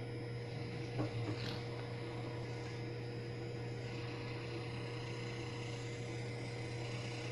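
Steady low electrical hum with a fainter steady higher tone over it, from the lab apparatus that drives the vapor flow, running at a set speed. There is a short faint sound about a second in.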